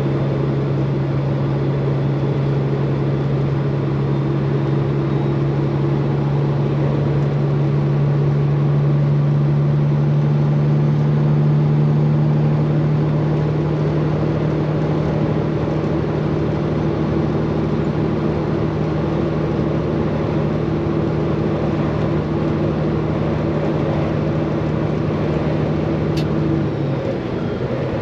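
Straight-piped Peterbilt 389 semi truck's diesel engine droning steadily at highway cruise. Its pitch dips briefly near the end, then settles again.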